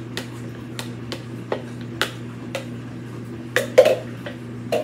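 Irregular clinks and taps of kitchen dishware as a beaten egg is emptied from a plastic measuring cup into a mixing bowl and the cup is taken to the sink, with the loudest clatter a little before the end, over a steady low hum.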